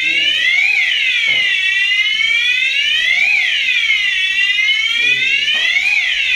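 Fire alarm siren set off in a smoke detector test, sounding a loud electronic wail that sweeps down and back up in pitch. Each cycle peaks sharply about every two and a half seconds.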